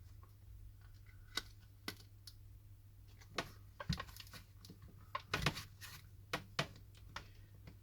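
Plastic pry tool clicking and tapping against the glass and frame of an LG Optimus L90 as the heat-softened digitizer is worked loose: scattered light clicks, with a quick cluster about five seconds in.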